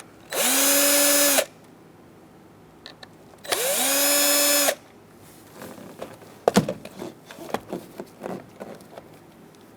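Cordless drill with a Phillips bit backing out screws: two short runs of about a second each, the motor whine rising as it spins up. After that, a scatter of light clicks and knocks from handling the plastic switch bracket and loose screws.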